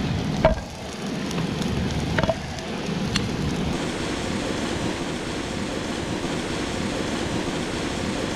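Cornmeal-breaded catfish sizzling in hot oil in a frying pan, a steady hiss. A few sharp clicks of tongs against the pan come in the first three seconds.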